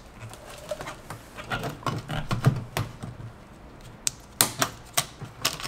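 Irregular sharp plastic clicks and taps from fuel-line quick-connect fittings and hoses being handled at the top of an in-tank low-pressure fuel pump module, with a cluster of louder clicks near the end.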